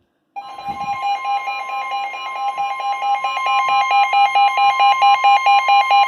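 Weather emergency alert tones signalling a severe thunderstorm warning. A steady high tone and a second alarm tone beeping rapidly over it start abruptly a moment in and grow louder.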